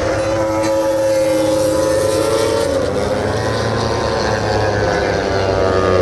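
MotoGP race motorcycles' high-revving engines heard across the circuit: a held, high engine note that drops in pitch about three seconds in, over a steady low rumble.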